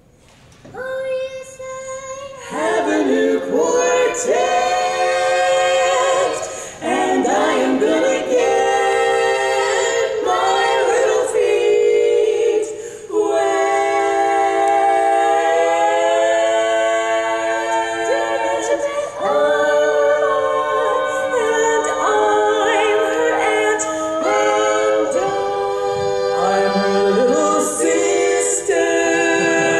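Women's barbershop quartet singing a cappella in close four-part harmony, with several long held chords.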